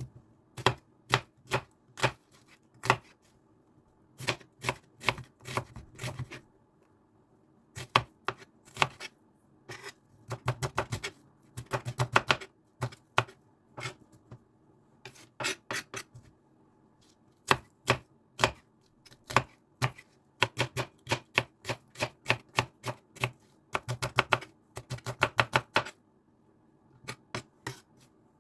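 Knife chopping on a cutting board: sharp irregular knocks, coming in quick runs of several hits a second with short pauses between, over a faint steady hum.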